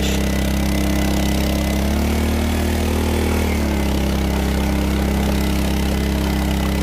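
Portable Honda petrol engine running steadily, a low even drone whose pitch wavers slightly.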